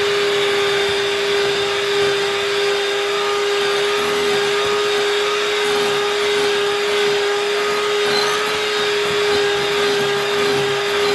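Electric hand mixer running at a steady speed, one constant whine, its beaters whipping cream cheese frosting in a glass bowl.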